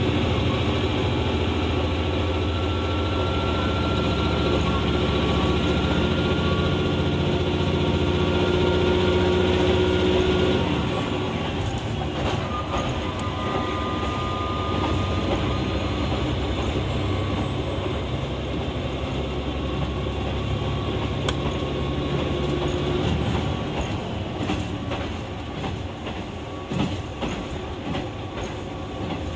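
A JR West KiHa 120 diesel railcar running, heard from inside. The diesel engine drones steadily under the wheel and track noise, then its note drops away about a third of the way in, leaving mainly rolling noise with clicks over rail joints.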